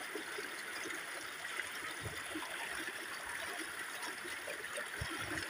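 Muddy floodwater from heavy rain flowing and trickling along a sandy, gravelly edge: a steady rushing of running water.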